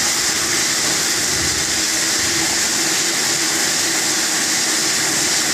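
Vertical machining centre cutting a part under flood coolant: a steady hiss of coolant spray and cutting, with a faint steady hum underneath.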